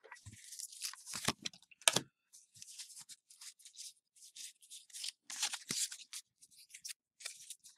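Pokémon trading cards being flipped through and slid past one another by hand: soft, irregular scuffs and flicks, with a sharper snap about two seconds in.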